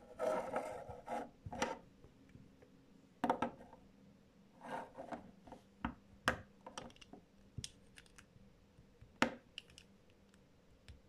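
Plastic Lego bricks being handled and pressed together on a table: an irregular run of small clicks and brief scrapes and rubs, with one sharp click about nine seconds in.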